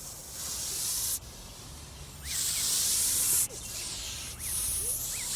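Goose hissing in four bursts of about a second each: the warning of a goose guarding its nest and goslings.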